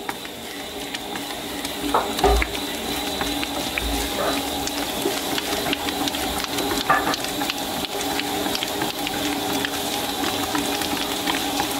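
Electric stand mixer running steadily, its dough hook kneading brioche dough as softened butter and sugar are worked in at a slightly lowered speed. A few short knocks sound through the motor hum, around two, four and seven seconds in.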